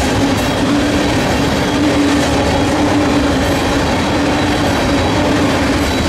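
Freight train of tank cars rolling steadily past, the continuous noise of steel wheels running on the rails, with a faint clickety-clack over the rail joints.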